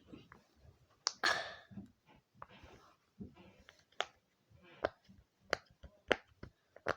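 Bubbles of a silicone pop-it fidget toy being pressed, making separate sharp pops: one about a second in, then about one every 0.6–0.8 s over the last three seconds.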